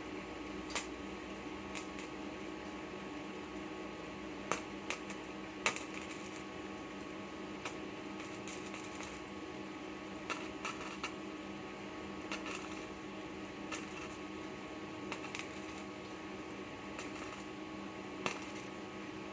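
Steady electrical hum with several fixed tones from a power inverter powering a welding machine, with scattered sharp clicks and ticks through it.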